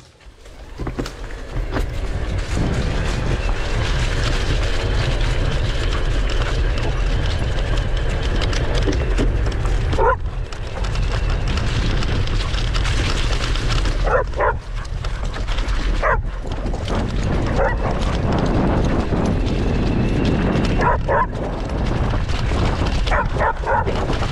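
Dogs barking in short yaps, a few at a time at irregular intervals, over the steady low rumble of wind and a bicycle's knobby tyres rolling across grass.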